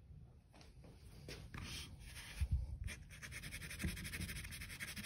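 Pastel pencil scratching on watercolor paper, first in a few short strokes, then in rapid back-and-forth scribbling from about three seconds in. A dull thump is heard about halfway through.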